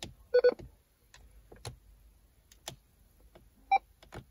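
Kenwood TM-D710G mobile radio's front-panel buttons clicking as they are pressed, with a short double beep about half a second in and a single higher beep near the end as the radio switches back on. This is the power-cycle with the third button held down that puts the radio into cross-band repeat mode.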